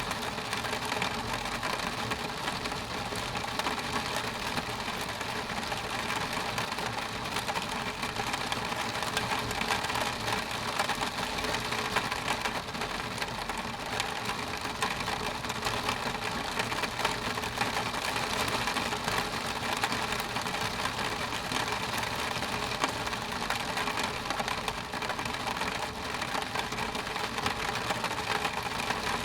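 Rain falling on a window pane: a steady, dense spatter of drops hitting the glass.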